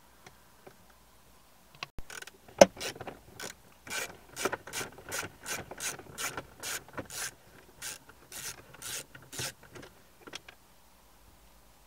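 Screwdriver backing Torx screws out of a Vauxhall Corsa's plastic glovebox: a sharp click about two seconds in, then a run of short rasping clicks, about two a second, that stops near the end.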